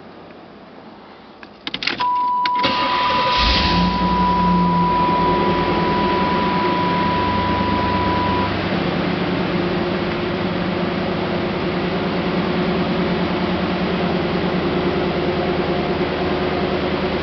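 1989 Chevrolet IROC-Z's V8 being started: a few clicks about two seconds in, then a steady electronic warning tone that holds for about six seconds. The engine catches about three and a half seconds in and then idles steadily.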